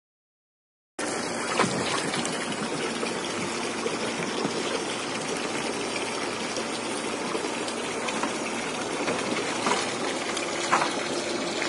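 Water gushing steadily, starting abruptly about a second in, with a few short splashes over it.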